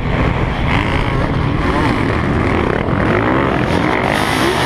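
Motocross dirt bike engine heard from onboard, its revs rising and falling with the throttle as it runs along the track, over a steady rush of wind and dirt noise.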